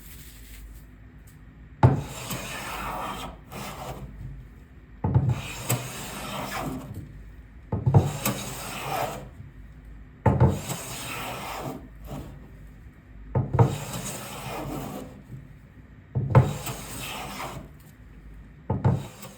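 Stanley Bailey No. 7 jointer hand plane being pushed along a wooden board, seven strokes about every three seconds. Each stroke opens with a knock and is followed by about a second of hissing as the blade cuts.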